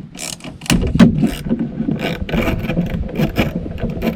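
Hand ratchet undoing a small 8 mm bolt, with irregular clicks and scraping of the parts against each other.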